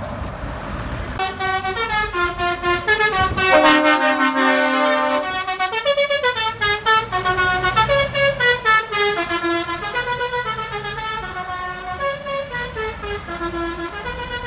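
Truck's musical air horns (trompetas) playing a tune: a long run of horn notes stepping up and down several times a second, starting about a second in and fading near the end, over a passing truck's engine.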